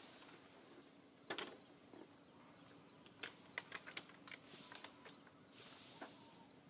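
Faint outdoor ambience with scattered sharp clicks and taps, the loudest about a second and a half in and a quick cluster around three to four seconds in, plus a few soft hissing swells near the end. No monkey calls or crying can be made out.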